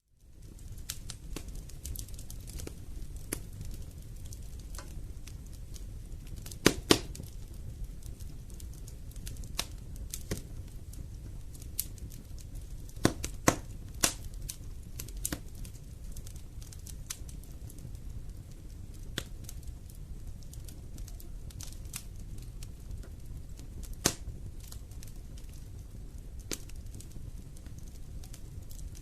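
Wood fire burning in a fireplace: a steady low rumble with scattered sharp crackles and pops. The loudest pops come as a pair about seven seconds in, another pair around thirteen to fourteen seconds, and a single one near twenty-four seconds.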